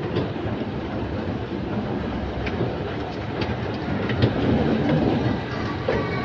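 Escalator running: a steady mechanical rumble from the moving steps and handrail, with scattered clicks.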